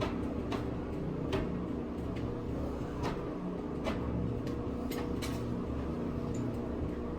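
A steady low hum with a scattered series of short, sharp clicks and taps, as of metal tools and parts being handled.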